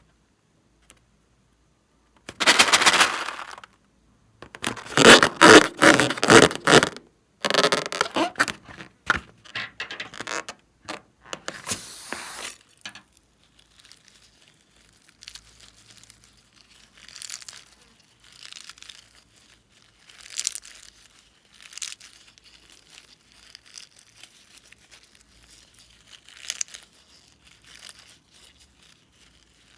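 Slime and balloons being handled and mixed by hand: three loud noisy bursts of a second or two each starting about two seconds in, a quick run of shorter ones, then softer scattered squishing and crinkling.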